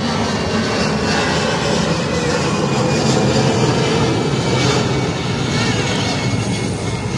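Jet engines of an Airbus A320 airliner climbing past, a loud, steady rumbling noise that swells slightly toward the middle.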